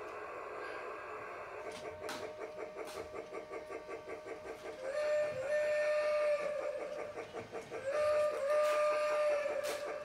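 Toy Polar Express train set running on its track, with a steady rhythmic chugging of about four to five beats a second. Its steam whistle sounds twice, about 5 s and 8 s in, each blast sliding up briefly and then holding for about a second and a half.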